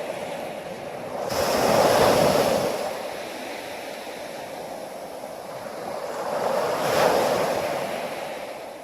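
Ocean waves breaking: two waves about five seconds apart, each a swell of surf that rises and fades, with a steady wash of water between them.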